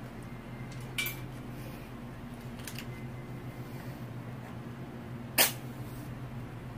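A long utility lighter clicking as the newspaper under a charcoal chimney is lit, about a second in and fainter near three seconds, over a steady low hum. About five and a half seconds in comes one louder, sharp snap.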